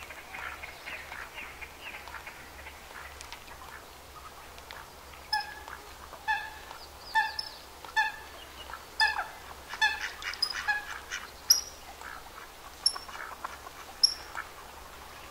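Great crested grebes calling at the nest: a series of short, repeated calls of even pitch, about one a second, starting about five seconds in and running for some nine seconds.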